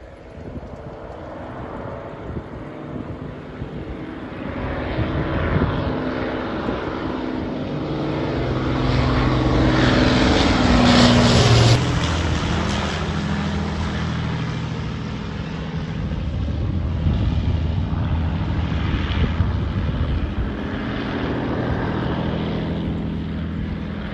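Avro Lancaster bomber's four Rolls-Royce Merlin piston engines droning as it flies low overhead. The sound builds steadily, is loudest about twelve seconds in as the bomber passes, then drops in pitch and eases off slightly.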